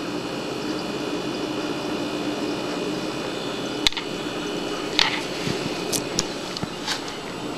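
Texas click beetle snapping: one sharp click about four seconds in, a stronger click about a second later, then a few fainter clicks, over a steady room hum.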